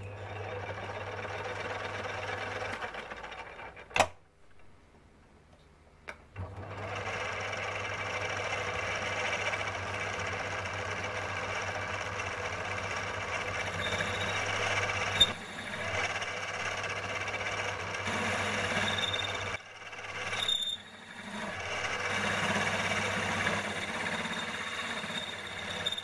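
Small bench metal lathe running, turning a sector arm on its faceplate while the tool is fed in, with a steady motor hum. It stops a few seconds in with a sharp click, starts again about six seconds in, and runs on with one more short dip later.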